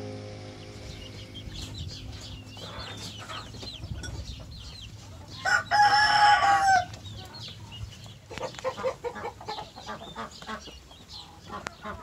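Farmyard fowl calling: scattered chirps and clucks, then one loud, long crow a little over halfway through, followed by short repeated clucking calls.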